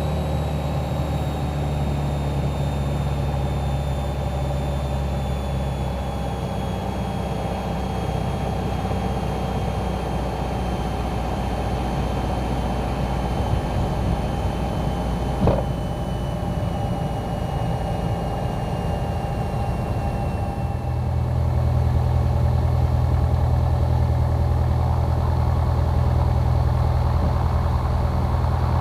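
Light airplane's piston engine running steadily on the ground, heard in the cockpit, with a faint whine that slowly falls in pitch. There is a single click about halfway through, and the engine gets louder about two-thirds of the way in as power is added.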